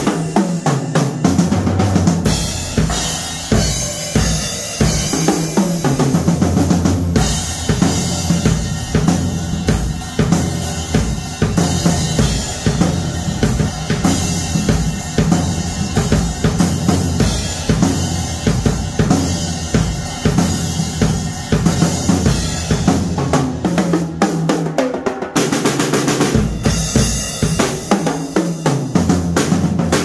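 Acoustic Ludwig drum kit played with sticks: a steady, busy beat of bass drum, snare and cymbals, with rolls and rimshots on the snare.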